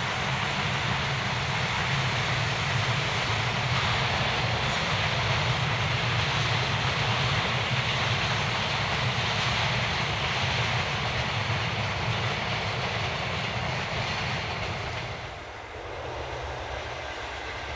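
Freight train passing with a steady roar, which drops away about fifteen seconds in.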